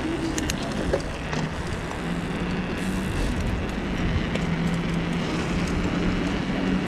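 Mountain bike rolling over paving stones: steady tyre noise with a low hum and a few light clicks and rattles from the bike.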